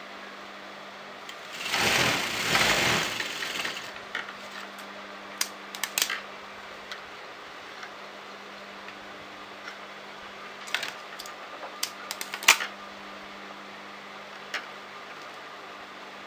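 A sewing machine stitches in one run of about two seconds near the start, then stops. Afterwards there are scattered short clicks and taps as the fabric is repositioned under the needle, over a steady low hum.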